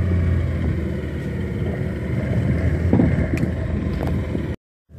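A small boat's motor runs with a steady low hum that fades about half a second in, leaving an even rushing noise of the boat moving through water. The sound breaks off abruptly near the end.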